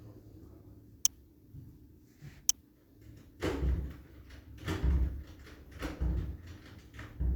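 Two sharp clicks about a second and a half apart, then a run of dull knocks and rubbing noises, four or five in the last four seconds.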